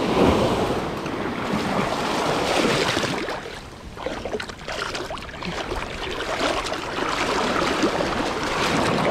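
Small waves washing up onto a sandy beach, with wind noise on the microphone.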